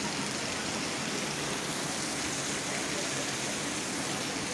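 Steady rushing of a tall waterfall, an even noise with no breaks.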